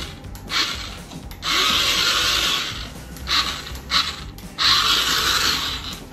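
Electric motors of a motorised Bumblebee transformer robot toy whirring in bursts as the robot moves: about five runs, three short and two lasting about a second each.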